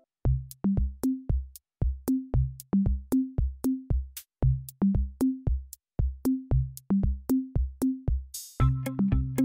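Background music: an electronic drum-machine beat with kick-drum thuds and sharp clicks, about two beats a second, over short low notes. Near the end a brief hiss sweeps in and sustained synthesizer chords join the beat.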